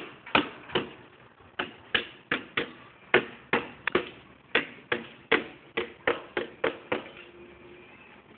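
Repeated sharp knocks and taps on a plastic bottle with a snake inside, coming irregularly about three a second and dying out about seven seconds in.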